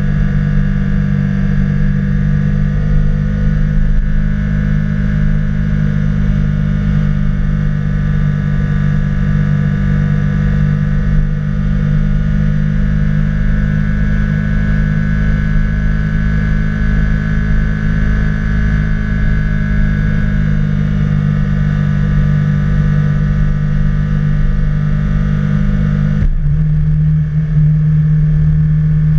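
Can-Am Spyder three-wheeled motorcycle's engine running steadily at cruising speed. About three seconds before the end, the engine note drops a little in pitch and stays there.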